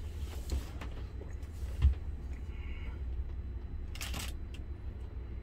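Steady low background hum with a single knock about two seconds in and a short rustle about four seconds in.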